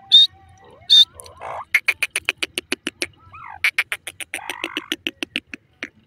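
Grey francolin calling: two sharp, high notes within the first second, then two long runs of fast repeated notes, about nine a second, the second run starting about halfway through.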